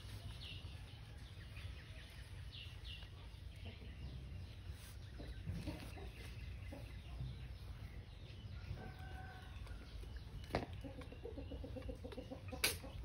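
Chickens clucking in the background, with a quick run of clucks near the end and a few short high squeaks in the first few seconds. Two sharp clicks come late, the second the loudest sound.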